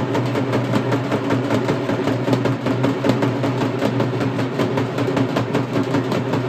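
Fast, continuous festival drumming on a barrel drum and a large stick-beaten drum, rapid even strokes with no break, over a steady low hum.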